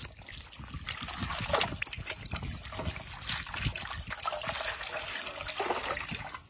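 A stream of water pouring into a large iron wok and splashing over a goat's head that is being rubbed clean by hand, as the water pools and churns in the pan.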